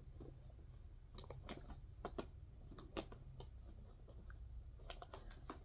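Faint, scattered light clicks and crinkles of a plastic bag of dog treats being handled as treats are picked out.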